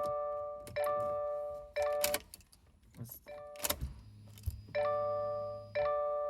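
Music: bell-like chiming chords struck about once a second, with a break of a couple of seconds in the middle, and a low hum under the last two seconds.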